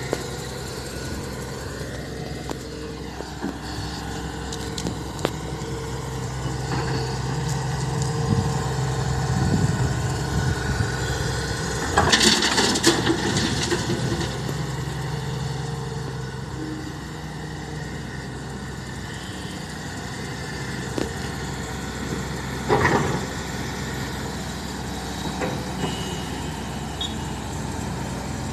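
Excavator's diesel engine running steadily while working. Loud clattering crashes come about halfway through, and a shorter one later, typical of stone or gravel being loaded.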